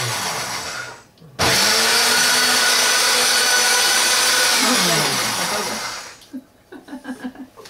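Ladyship high-speed blender blending a smoothie. It cuts out about a second in, starts again with a rising whine as the motor spins up, and runs steadily for a few seconds. It then winds down and stops about six seconds in.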